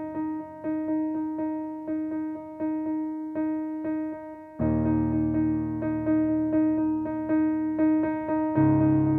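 Smooth-jazz piano improvisation: one note struck over and over, with full low chords coming in about halfway through and changing near the end.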